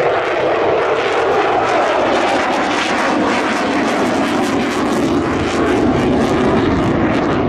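Loud aircraft engine noise as an airplane flies past, its pitch slowly falling through the pass.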